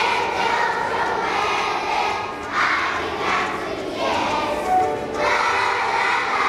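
A large group of kindergarten children singing together as a choir.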